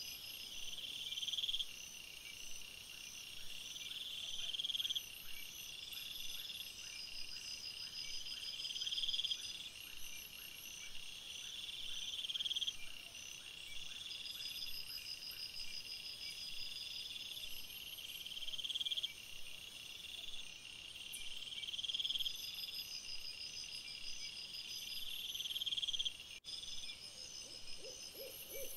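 Night chorus of insects: high buzzing trills that swell and then cut off every two to three seconds, over a steady high chirping. A faint run of quick ticks runs through the first half.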